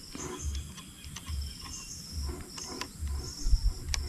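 Insects trilling in a high buzz that comes and goes, over soft low thuds about once a second, with a few sharp clicks from handling a plastic solar camping lantern.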